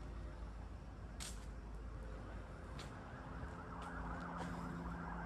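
Distant siren wailing, its wavering tone coming in about three and a half seconds in over a low street rumble, with a few faint sharp cracks before it.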